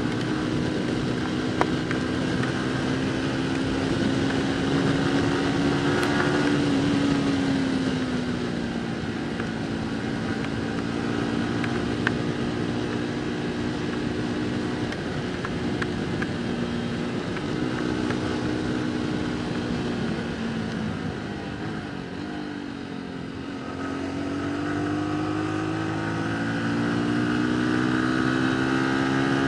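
Motorcycle engine running under way, holding a steady note that drops about seven seconds in, sags again a little past twenty seconds, then climbs as the rider speeds up near the end, with steady road and wind noise.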